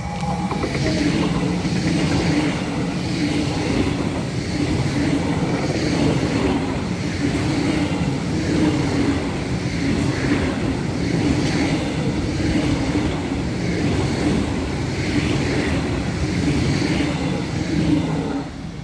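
ICE high-speed electric train passing at close range: a loud steady rush of wheels on rail with a regular beat as the bogies go by, dropping away suddenly as the last car clears near the end.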